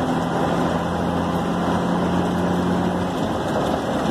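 Truck engine running as the truck drives along a street, heard from inside the cab, with a steady hum that drops away about three seconds in.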